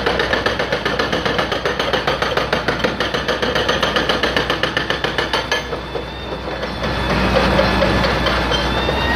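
Backhoe loader's diesel engine running under load, with a rapid, even knocking that stops about five and a half seconds in. After a brief dip the engine runs on steadily.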